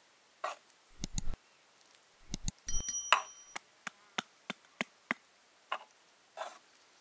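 Dishes and utensils being handled: a run of sharp knocks and clicks, with a ringing clink about three seconds in and a few softer scrapes near the end.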